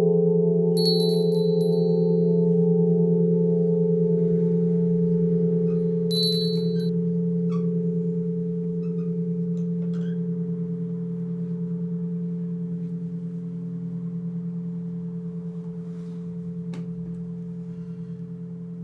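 Orthodox church bell humming on after being struck, a deep tone with a higher overtone that wavers and slowly fades away. Two short high-pitched chirps sound over it, about a second in and again about six seconds in.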